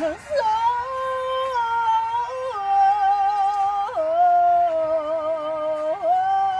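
A woman singing solo and unaccompanied, holding long notes one after another that step down in pitch, with short slides between them.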